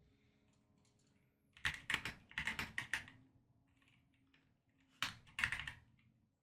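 Mechanical keyboard keys clacking in two quick runs of keystrokes, the first about one and a half seconds in and lasting about a second and a half, the second shorter, near the end.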